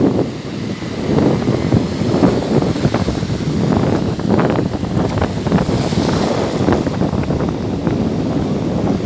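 Black Sea surf washing onto the beach, with wind buffeting the microphone in a continuous low rumble.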